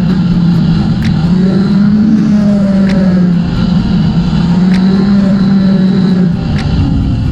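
Motorcycle engine running steadily under way, sped up fourfold, its note wavering slightly over wind and road noise. Faint sharp ticks come about every two seconds.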